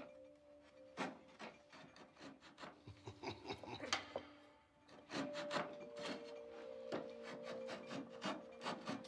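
Rhythmic rasping strokes of a hand tool working wood, about two strokes a second, with a brief pause halfway through. Faint held musical tones sound underneath and change pitch about five seconds in.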